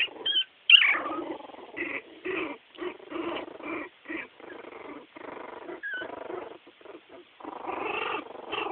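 Chiweenie–miniature pinscher puppies whimpering and squealing: a string of short, high cries and grunts, several a second, the loudest a falling squeal about a second in.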